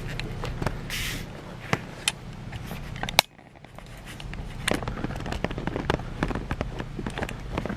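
Irregular sharp clicks, crackles and small knocks of ceiling-fan parts and wiring being handled, over a steady low hum. A loud click comes about three seconds in, the background drops out briefly, then the clicking grows busier.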